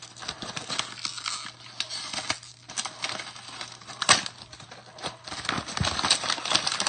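Irregular clicks, taps and crinkling of packaging being handled and opened, with a sharper knock about four seconds in.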